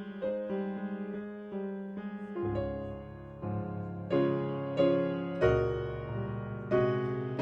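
Slow piano music: chords struck about once a second and left to ring. Low bass notes join about two and a half seconds in.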